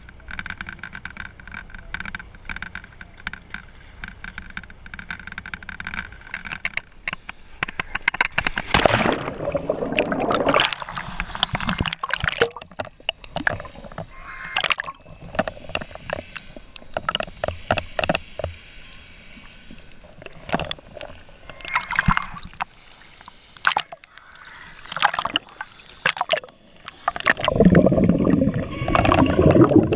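A steady hum with several level tones at first, then from about seven seconds water sloshing and gurgling in irregular gushes: scuba divers' exhaled air bubbling out of their regulators, muffled through an underwater camera housing, loudest near the end.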